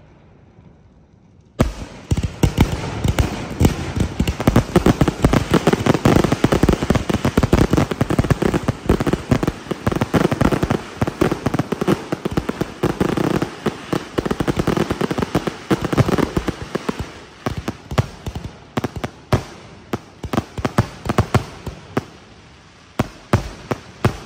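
Fireworks display: after a brief lull, a dense, rapid barrage of bangs and crackling starts about a second and a half in, thinning to scattered separate bangs near the end.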